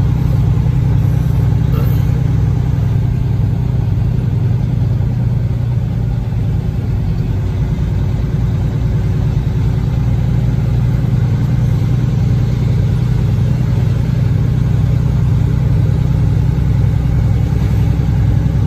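Truck engine running steadily at low road speed, heard from inside the cab as a constant low drone.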